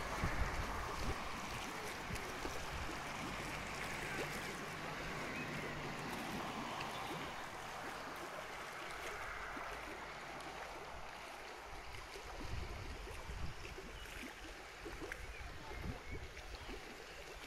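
Steady rush of flowing water from a dam spillway, slowly fading. Gusts of wind buffet the microphone in the second half.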